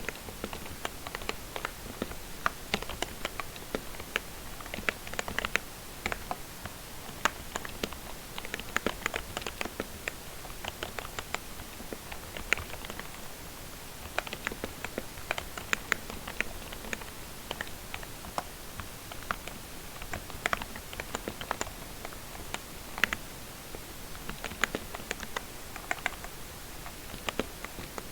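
Typing on a lubricated membrane keyboard: quick, irregular runs of soft key clicks with brief pauses between words.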